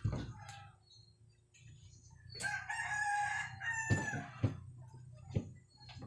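A long drawn-out animal call, steady in pitch for about a second and a half, starting a couple of seconds in. Several sharp knocks come around it as things are handled in the refrigerator.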